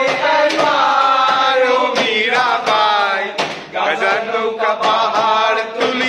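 A group of young men singing a Bengali song together, unaccompanied, with held, wavering notes.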